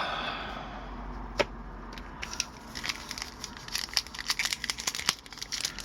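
Foil wrapper of a hockey card pack crinkling and tearing as it is opened, with one sharp click about a second and a half in, then a run of quick small crackles from about two seconds in.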